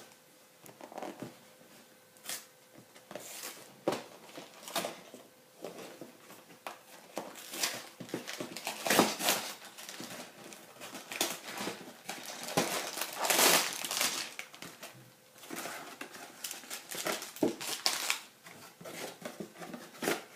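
Plastic parts bags and paper packaging of a Lego set crinkling and rustling as they are handled and pulled out of the box, with scattered clicks and knocks.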